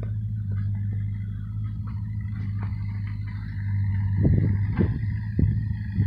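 A steady low hum, with four soft thumps about half a second apart in the second half: footsteps on snowy ground.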